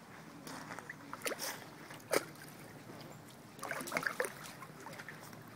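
A dog paddling in shallow water: irregular splashes and sloshing over low water noise, the sharpest about two seconds in and a quick cluster of splashes around four seconds in.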